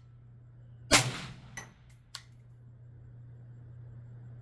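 One suppressed shot from a 5.56 rifle with a B&T VERS36 titanium suppressor about a second in, with a short ringing tail, followed by two light clinks.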